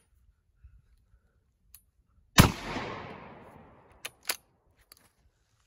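A single shotgun shot about two and a half seconds in, its report dying away over more than a second, followed by two short sharp clicks.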